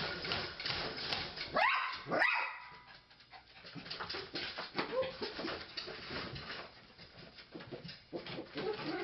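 A dog whining and yelping, with two rising cries about two seconds in, among many short clicks and knocks.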